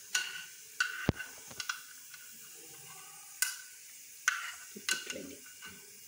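Metal spoon scraping and tapping a small frying pan of hot ghee while scooping out fried coconut pieces: several separate clinks, each with a short ring.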